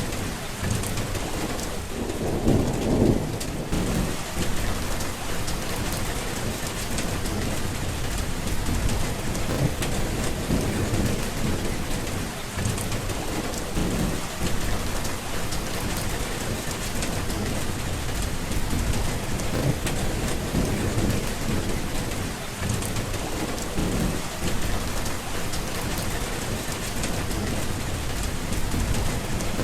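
Steady rain falling, with low rolling thunder rumbling through it. The loudest roll of thunder comes about two to three seconds in.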